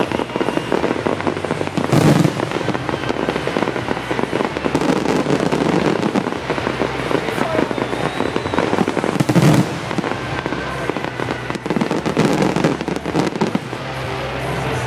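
Fireworks bursting in a continuous dense crackle, with two heavier bangs: one about two seconds in and another just after nine seconds.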